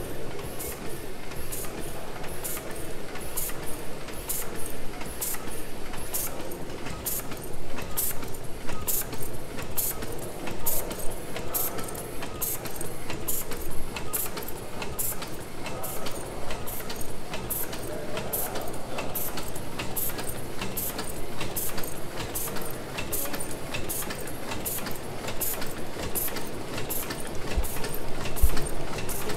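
1904 Sulzer tandem-compound steam engine running steadily at a slow, even pace, driving its flywheel generator. A sharp mechanical click repeats a little under twice a second over a steady low machinery rumble.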